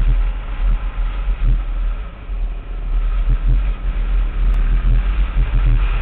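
Dual-sport motorcycle engine running as the bike rides along, heard from on the bike under a heavy, uneven low rumble.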